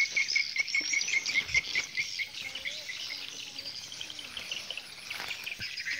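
Insects and small birds chirping outdoors: a fast, even run of chirps, about six a second, that stops about two seconds in, with thin, higher twittering throughout.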